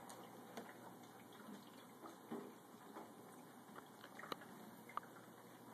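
Near silence: faint room tone with a few soft, brief clicks, the clearest about four and five seconds in.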